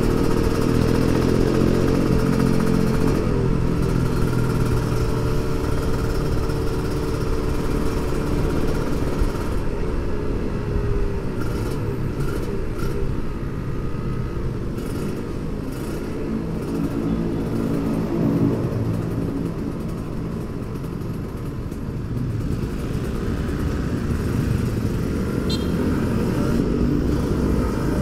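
Kawasaki Ninja 150 RR two-stroke single-cylinder motorcycle engine running under way, its pitch rising and falling as the throttle is opened and closed, over steady wind rush, with other motorcycles running close by.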